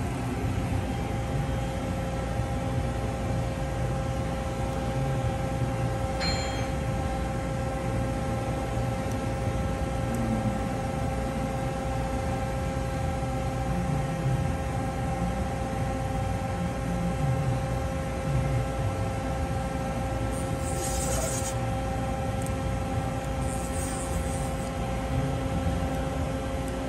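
1995 Mori Seiki ZL-35MC CNC lathe running: a steady machine hum with a low rumble and several steady whining tones, with a few short hisses in the last third.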